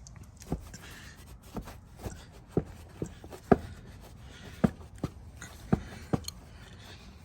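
A cleaning rag wiping dirt out of a truck's tag-light opening, a faint rubbing hiss broken by about a dozen irregular sharp knocks and taps from hand and rag against the housing.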